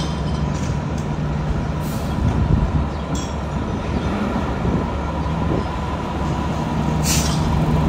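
Seagrave fire engine's diesel engine running in low, steady tones as the rig rolls forward out of its bay. A short hiss comes near the end.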